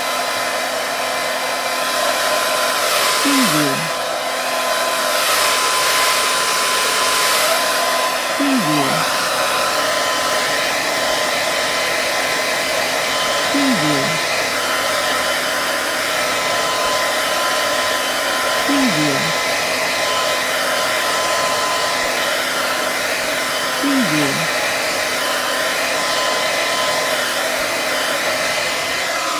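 Hair dryer running continuously, a rush of air with a steady whine on top. For a few seconds near the start the airflow turns brighter and hissier, then settles back to an even blow.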